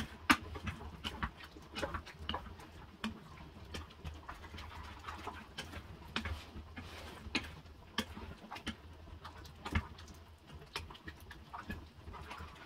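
Wooden spoon stirring a thick vegetable sauce in a stainless steel saucepan, knocking and scraping irregularly against the pan's side and bottom, a few knocks a second.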